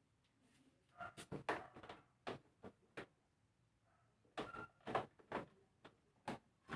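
Household items being handled and set down while a refrigerator is cleaned and restocked: a string of short knocks, clicks and rustles, starting about a second in.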